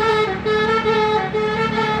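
Bus telolet horn: a multi-tone musical air horn playing a quick run of stepping notes, several a second, with the bus engine running underneath.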